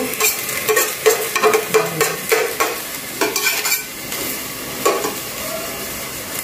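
Metal spoon scraping and clinking around the bottom of a hot aluminium pot, about two or three strokes a second with the pot ringing, over a faint sizzle of leftover water drying off. The stirring thins out about four seconds in.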